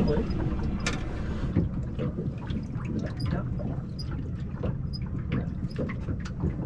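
Small waves lapping and slapping irregularly against the hull of an anchored small boat, over a steady rush of wind on the microphone.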